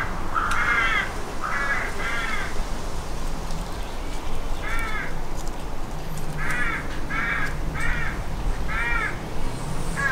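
A crow cawing: about eight harsh caws, in short runs of two or three with pauses between.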